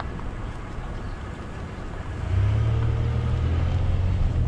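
Vehicle running, heard from inside the cab. The low engine and road rumble grows clearly louder about two seconds in as it picks up speed, with a faint rising whine.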